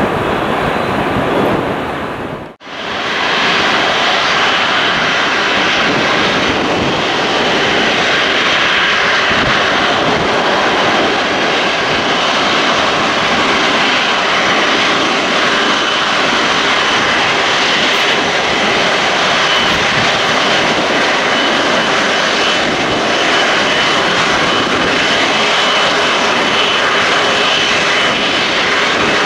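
Jet airliner engines running loud and steady, a broad roar with a thin high whine over it. The sound drops out sharply for an instant about two and a half seconds in, then returns at the same level.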